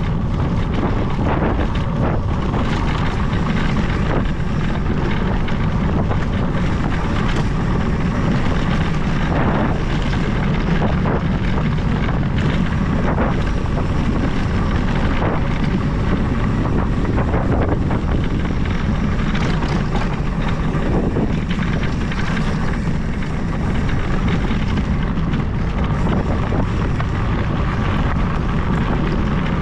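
Mountain bike's knobby tyres rolling over a dirt and gravel trail, a steady low rumble with scattered small crunches and rattles, mixed with wind buffeting the microphone.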